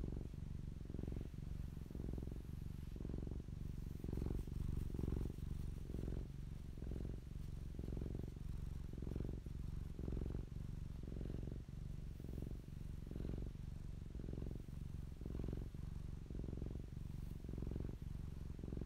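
Long-haired domestic cat purring steadily, the low purr swelling and fading in an even rhythm a little more than once a second.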